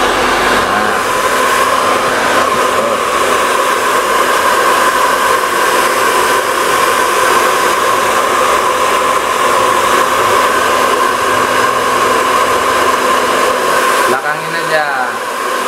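Hand-held hair dryer running steadily while blow-drying hair, a continuous rush of air with a steady whine. About fourteen seconds in, the low part of the sound drops away briefly.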